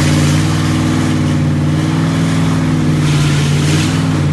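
Car engine droning steadily while driving, heard from inside the cabin, with road and wind noise over it.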